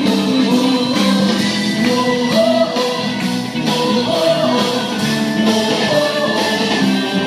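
Upbeat song with a lead vocal and a steady beat, played loud for a group dance.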